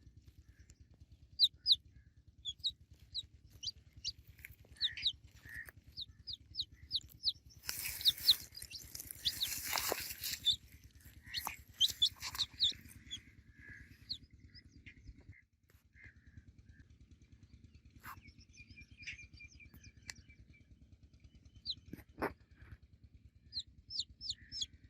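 Baby chicks peeping: short, high, falling chirps in quick runs, with pauses between. A noisy rustling burst comes about eight to ten seconds in.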